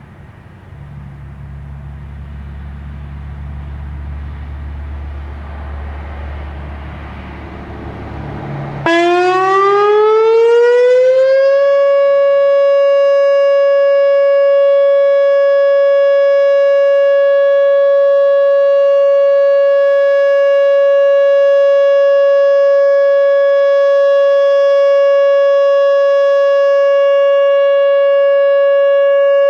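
Whelen Omni-Alert OA4 electronic outdoor warning siren sounding its steady Alert signal. About nine seconds in it cuts in suddenly and loud, sweeps up in pitch over about two seconds, then holds one steady tone. Before it there is a low rumble.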